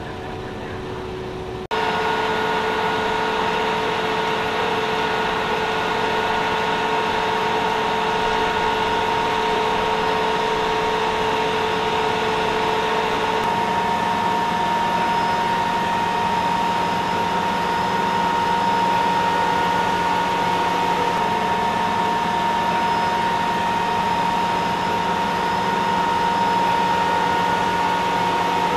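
Steady drone of heavy machinery with several held tones, starting abruptly and louder about two seconds in; one of its tones drops out about halfway through.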